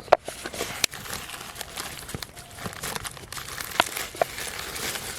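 Plastic biscuit packet crinkling as it is handled, with a few sharp clicks and taps.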